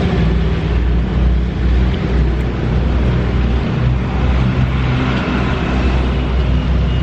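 Motor vehicle engine idling: a steady low rumble.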